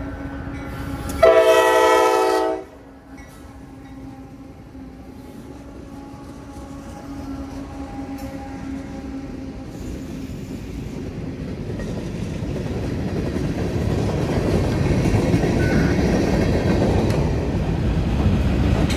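CSX freight train passing close by behind diesel locomotives: the horn gives one blast of about a second and a half, a little over a second in. After the blast the locomotive engines run with a steady drone, and the rolling freight cars then grow steadily louder, with wheel noise on the rails.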